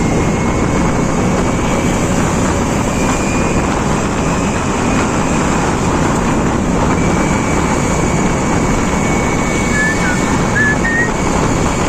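Steady rush of wind on the microphone and road noise while riding a Honda Scoopy motor scooter.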